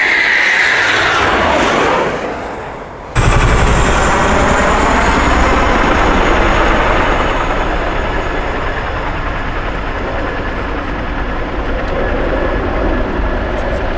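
A jet aircraft passing with its whine falling steadily in pitch, then an abrupt cut about three seconds in to a steady, loud rumbling roar of aircraft engine noise.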